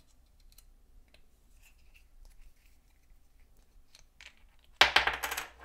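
Plastic motorcycle phone-mount parts and a small hex key being handled to undo the mount's bolt: faint scattered clicks, then a loud, brief crackling scrape near the end.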